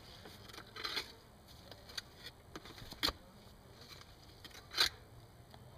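A few short scrapes and knocks of a digging tool working in hard, root-filled soil, spaced a second or so apart, the last one the loudest.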